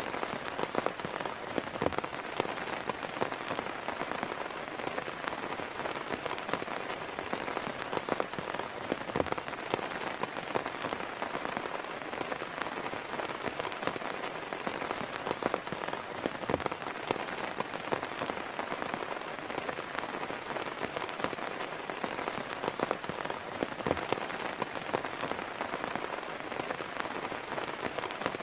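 Heavy rain falling steadily, with many sharp individual drops striking a surface close by.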